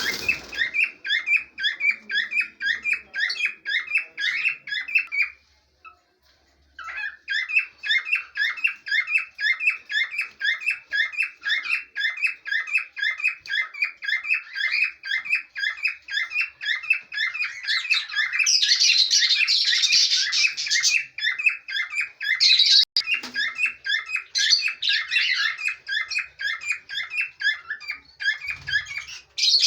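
Pet parrots chirping in a fast, even run of short, sharp chirps, a few per second. The chirping stops for a moment about five seconds in, then resumes, with a louder, harsher burst of chatter about two-thirds of the way through.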